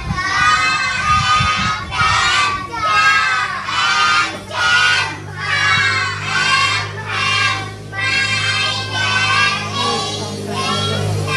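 A high-pitched voice singing in short phrases, and from about halfway a steady low hum underneath.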